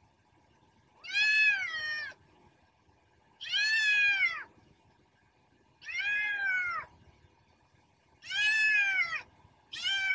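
Kitten meowing: four calls about a second long, each rising then falling in pitch, spaced a couple of seconds apart, with a fifth starting just at the end.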